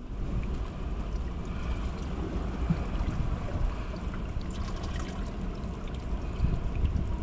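Seawater running and trickling among shoreline rocks at low tide, a steady wash of water noise with a low rumble underneath.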